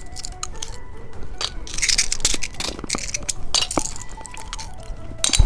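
Close-miked clicks, taps and crinkles of a plastic-packaged candy being handled and opened, over soft background music, with a heavier knock near the end.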